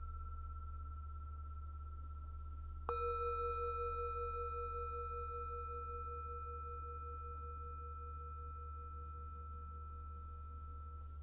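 Tibetan singing bowl struck once about three seconds in, over the ring of an earlier strike. Its tones ring on and slowly fade, the lower tone wavering gently. A steady low hum runs underneath.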